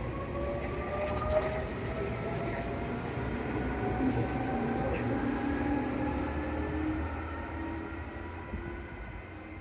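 Meitetsu 6000 series electric train accelerating away from the platform, its traction motors whining in a steadily rising pitch over the low rumble of its wheels on the rails, fading as it draws off.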